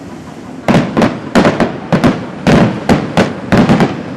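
Fireworks display: after a brief lull, a rapid volley of sharp bangs from bursting shells, many in quick succession.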